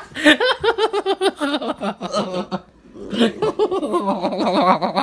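A person laughing hard in a long run of quick, pitched ha-ha bursts. The laughter breaks off briefly a little past halfway, then starts up again.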